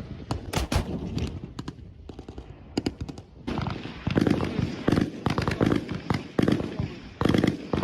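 Gunfire on a firing range: scattered single shots at first, then from about three and a half seconds in, repeated short bursts of rapid automatic fire.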